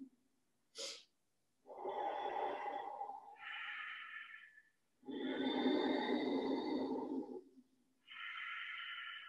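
Slow, audible Ujjayi breathing through the throat: two full breaths, each a longer, fuller breath followed by a shorter, hissier one. A brief sharp click comes about a second in.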